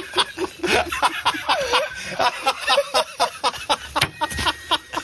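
Two men laughing hard, in rapid runs of short breathy pulses.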